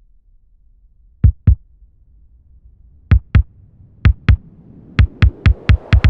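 Heartbeat sound opening an electronic dance track: deep double thumps in pairs that come closer together, then quicken to about four even thumps a second near the end over a faint rising hum.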